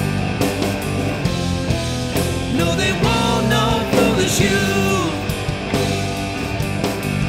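Rock song with singing over a steady drum beat.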